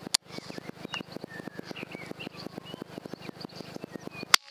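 Birds chirping over a fast, even ticking, with a sharp click just after the start. Near the end comes a single sharp rifle shot, by far the loudest sound, fired at a rabbit under the crosshair.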